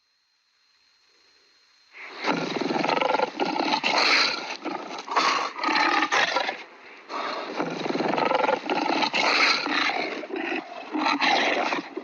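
Lion roar sound effect: two long, rough roars, the first starting about two seconds in and the second following straight after it.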